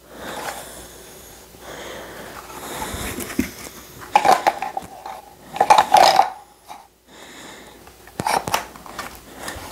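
A pistol with a weapon light being handled and pushed into a polymer duty holster: scraping and rubbing, then several sharp plastic knocks and clicks, about four seconds in, around six seconds, and twice more near the end.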